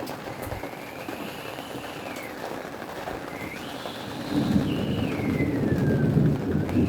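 Steady rain, with a low rumble swelling up about two-thirds of the way through. A faint high tone slides up and down above it.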